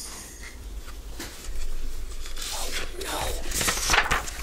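Paper pages of a picture book being handled and turned, a series of rustles and slides, loudest near the end.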